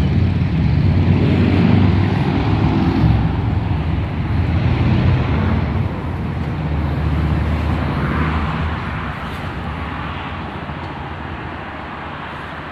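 A vehicle engine on the road, a low steady hum that is loudest in the first few seconds and then fades away as it passes.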